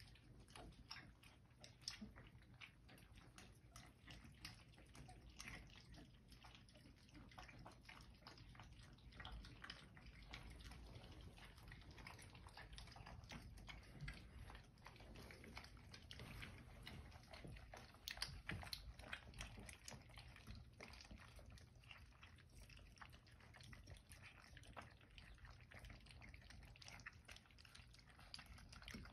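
A litter of young puppies lapping and chewing food from a muffin tin: a faint, constant patter of small wet clicks and smacks.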